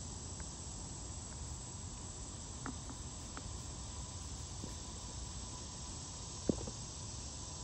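Steady outdoor ambience of insects chirping, with a faint steady tone through it and a few faint ticks. One short knock stands out about six and a half seconds in.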